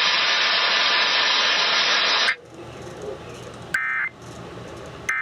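Loud radio static hiss that cuts off suddenly about two seconds in, followed by Emergency Alert System end-of-message data bursts: two short, harsh, warbling digital tone bursts about a second and a half apart, marking the end of the relayed tornado warning.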